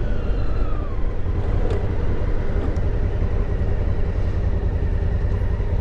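Motorcycle riding at speed, heard on a helmet microphone: steady heavy wind buffeting and road noise, with the engine running underneath.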